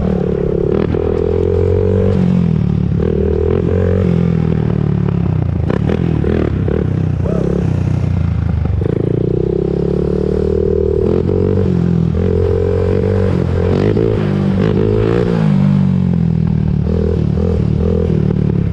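Honda TRX400EX quad's single-cylinder four-stroke engine running under riding load, its pitch rising and falling over and over as the throttle is opened and eased off.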